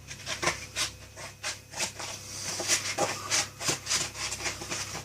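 Cardboard egg cartons being cut to size: a run of short, irregular cutting strokes, several a second.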